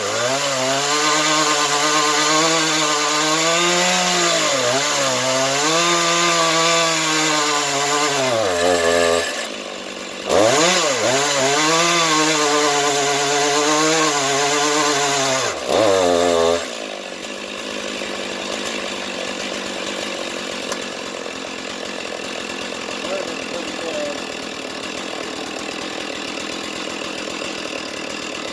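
Chainsaw running at full throttle while ripping a slab in a chainsaw mill, its pitch sagging and recovering as it bogs under load in the cut; it is fitted with a standard crosscut chain rather than a ripping chain. About nine seconds in the engine note drops away for a moment, then it returns, and at about seventeen seconds it stops, leaving a quieter, steady noise.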